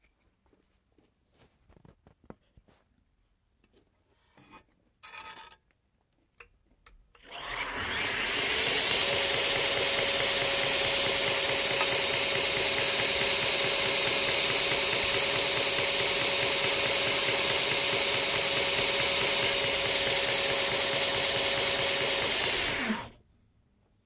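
A few faint handling clicks, then a belt grinder switches on about seven seconds in. It runs steadily while the tang of a pocket-knife blade is ground against the belt to set the closed position. It switches off about a second before the end, winding down briefly.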